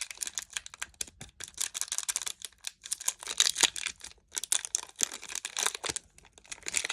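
Foil Pokémon booster pack wrapper crinkling and tearing as it is opened by hand: a quick run of sharp crackles in clusters, with short pauses between.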